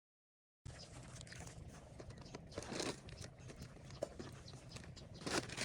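A moment of dead silence, then irregular crunching and crinkling noises, with louder crunches near the middle and near the end.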